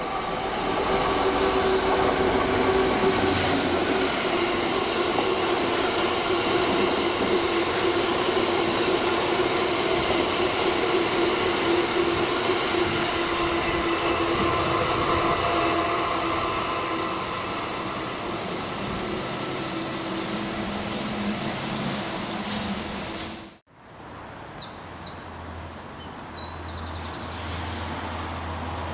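Freightliner Class 66 diesel-electric locomotive passing at speed, its two-stroke EMD V12 engine running, followed by a long rake of loaded box wagons rumbling by and slowly fading. After an abrupt cut about 24 s in, a quieter low hum from another Class 66 approaching in the distance.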